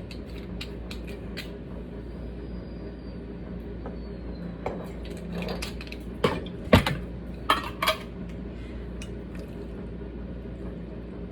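Kitchen containers and utensils being handled on a counter: scattered clicks and knocks, with a few louder clinks about six to eight seconds in.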